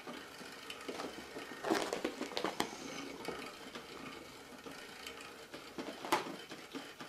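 Faint scattered thumps and scuffs of a cat's paws pouncing and skidding on carpet, with a louder scuff about two seconds in and a sharp click about six seconds in.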